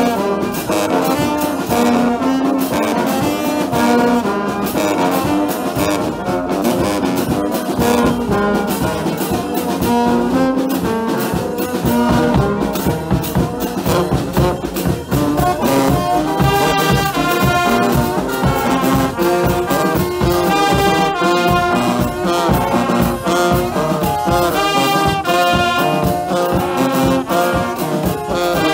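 Music with a brass-sounding melody of held, stepping notes over a steady, dense percussive beat.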